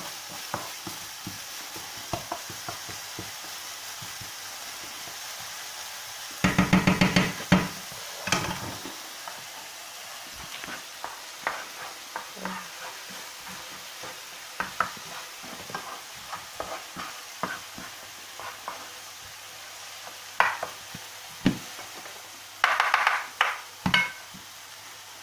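Grated onions and spices frying in oil in a non-stick pan with a steady sizzle, while a wooden spoon stirs and scrapes the pan with scattered light knocks. About six seconds in, and again near the end, a quick run of rapid scraping strokes is loudest.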